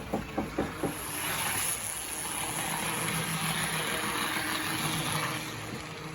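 Restored Aristo-Craft Camelback 0-4-0 model locomotive running along the track, its electric motor and gears whirring steadily with a low hum, after a few clicks in the first second. The gears have fresh grease that is still being worked in.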